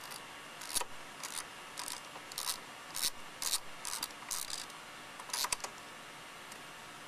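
Ratchet socket wrench being swung back and forth on a carburettor mounting bolt, giving about ten short bursts of ratchet clicking roughly every half second as the bolt is worked loose. The clicking stops about five and a half seconds in.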